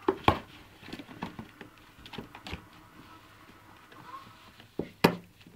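Border Terrier puppy scrabbling and knocking about an empty cardboard box: irregular taps and scratches, with two sharp knocks at the start and a louder one near the end.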